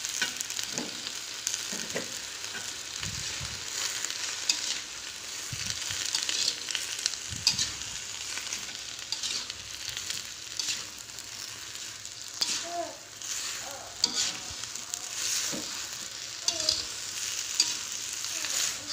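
Pak choy and enoki mushrooms sizzling in a hot metal pan while a metal spatula stirs them, scraping and clinking against the pan at irregular moments.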